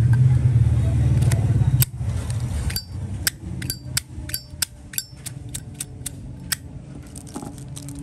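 Zippo lighter lid snapped open and shut over and over: about a dozen sharp metal clicks, some with a short high ring, from an unused lighter whose hinge and cam have never been adjusted. A low rumble before that cuts off about two seconds in.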